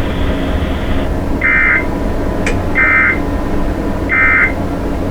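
Emergency Alert System end-of-message signal: three short, identical bursts of digital data tones about 1.3 seconds apart, over a steady background hiss and hum. This closes the broadcast alert.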